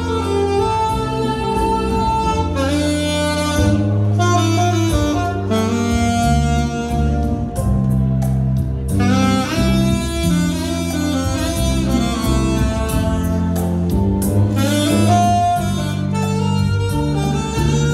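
Saxophone playing a melody over backing music with a steady bass line.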